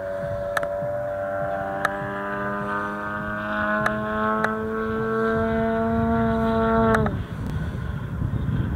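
A motor or engine running with a steady tone that climbs slowly in pitch and then cuts off abruptly about seven seconds in. Under it is a low wind rumble on the microphone, with a few faint clicks.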